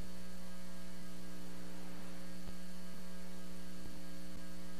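Steady electrical mains hum, a low buzz with several higher overtones, at an even level.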